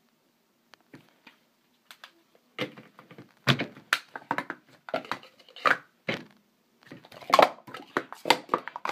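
Hard plastic speed-stacking cups clacking rapidly as they are stacked up and brought down: a few faint clicks at first, then quick runs of sharp clacks from about two and a half seconds in.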